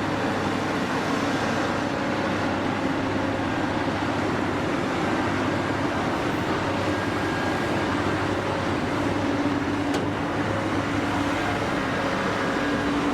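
Heavy vehicle engine running steadily, a continuous noisy rumble with a low hum.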